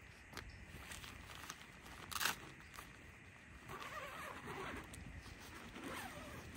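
Nylon tent vestibule zipper being pulled open in short rasping runs, with the fly fabric rustling, after a sharp click about two seconds in. A low wind rumble on the microphone underneath.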